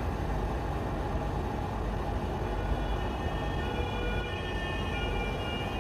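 Steady low rumble of an airliner's engines as heard from the cockpit while the plane taxis. Faint, slightly wavering high tones come in about halfway through.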